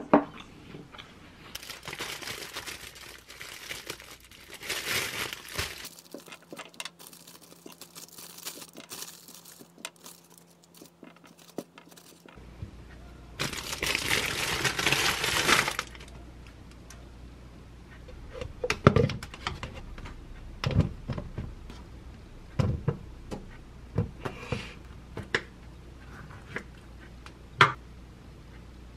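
Kitchen handling sounds: a mug set down with a sharp knock at the start, then rustling and plastic crinkling as grapes are pulled from the bunch, with a louder stretch of rustling for about two seconds in the middle. Later come a string of short, sharp knocks and taps as fruit is handled and dropped into a plastic cup.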